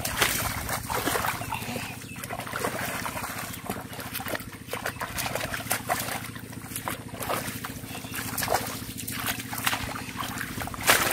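Hands and feet splashing and sloshing in shallow muddy water among grass, in irregular splashes, with a steady low hum underneath.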